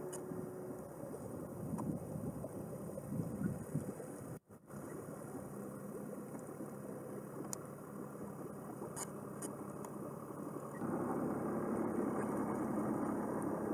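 Small stern-mounted canoe motor running steadily as the canoe moves through the water, with water noise under it. The sound drops out for a moment about four and a half seconds in and gets louder about eleven seconds in.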